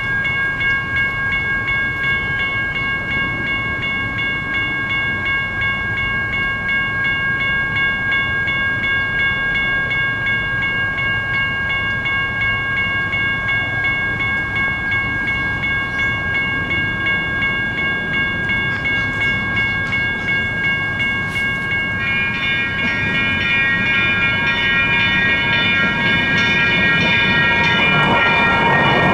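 Railroad crossing's GS Type 1 electronic bells ringing steadily, a stack of pulsing tones. About 22 seconds in a second ringing tone of a different pitch joins, and near the end the rumble of an approaching Siemens Duewag U2A light rail train rises.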